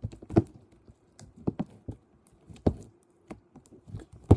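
Purple glitter slime being kneaded and stretched by hand on a metal tray: irregular sticky clicks and squelches, with a louder one about half a second in and another at the very end.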